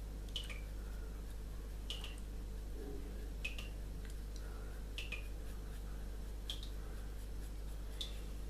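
Graphite pencil hatching on smooth drawing paper: short, sharp, high strokes about every second and a half over a steady electrical hum.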